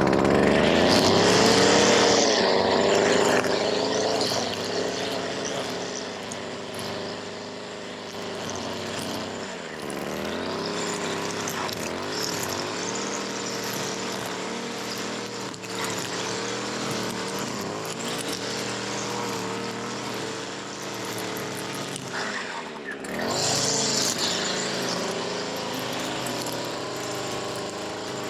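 Two-stroke string trimmer engine running at working throttle, its pitch rising and falling as the throttle is worked while cutting grass. It is loudest in the first few seconds, drops briefly a little over 20 seconds in, then revs back up.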